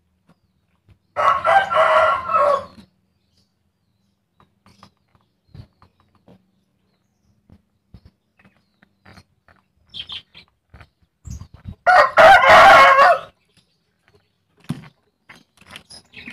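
A chicken calls loudly twice, each call about a second and a half long, the first about a second in and the second near twelve seconds. Faint scattered clicks and rustles come between the calls.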